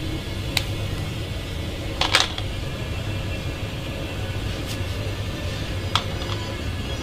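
A few short knife clicks and taps as peeled onions are cut on a steel counter and the pieces set into a metal dish, the loudest a brief clatter about two seconds in, over a steady low hum.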